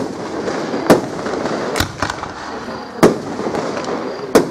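Aerial firework shells bursting overhead: about five sharp bangs, roughly one a second, with steady noise between them.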